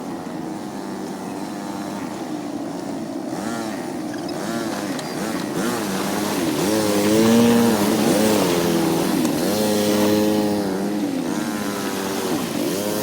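ATV engine running, its pitch rising and falling again and again as it revs up and eases off, growing louder after the middle.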